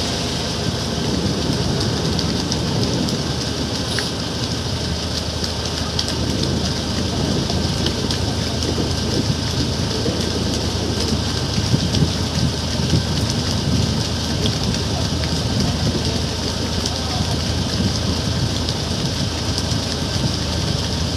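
Motorboat engine running steadily, with water rushing and splashing along the hull.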